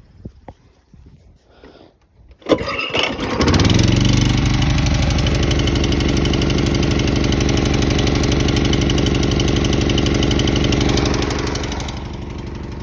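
Honda lawnmower's small four-stroke single-cylinder engine cold-starting on choke: it catches about two and a half seconds in and runs at a steady fast speed, then eases to a quieter, lower running near the end.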